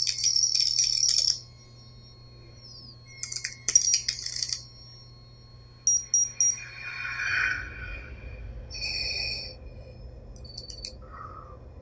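Electronic user-interface sound effects: clusters of high beeps, chirps and data blips, including a quick falling chirp, over a steady low hum, with a soft rushing swell about midway.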